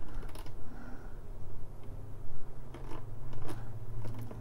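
Scattered light clicks from the horizontal-position knob of a Rohde & Schwarz RTB2004 digital oscilloscope being turned, over a steady low hum.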